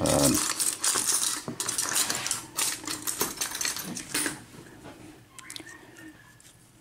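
Small metal top pins and springs from a Sargent six-pin cylinder lock clicking and tinkling as they are taken out and handled. The clatter is dense for about four seconds, then thins to a few faint clicks.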